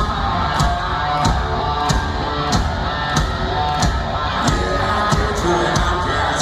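Live rock band playing loud, with drums and electric guitars and a cymbal struck steadily about every two-thirds of a second.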